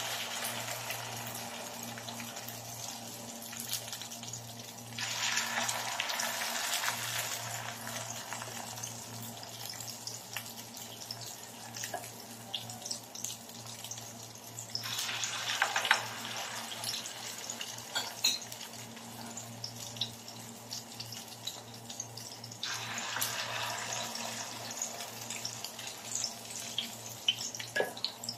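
Hot oil sizzling and crackling as fritters of dulong, egg and flour batter fry in a pan. The sizzle swells louder about four times, each time a fresh ladleful of batter goes into the oil.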